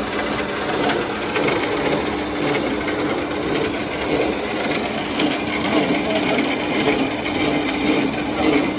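Metal lathe running steadily: a constant hum under a dense, rough noise, with no pauses.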